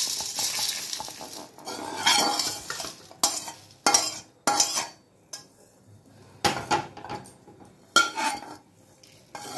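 Dry-roasted whole spices (coriander seeds, peppercorns, cumin and dried red chillies) poured rattling out of a metal kadai onto a steel plate. A metal spatula then scrapes and clanks against the pan in a run of separate strokes, pushing out the last seeds.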